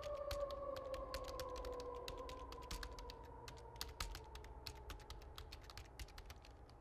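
Fast, irregular clicking of computer keyboard keys being typed on. Behind it, a faint tone slides slowly downward and fades out about halfway through.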